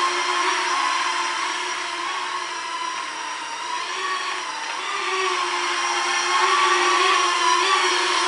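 Small toy quadcopter's electric motors and propellers whining steadily, the pitch wavering up and down as the throttle changes in flight, dipping a little a few seconds in and rising again near the end.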